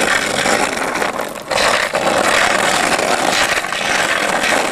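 Skateboard wheels rolling over rough asphalt: a steady, loud rolling hiss that dips briefly about a second and a half in.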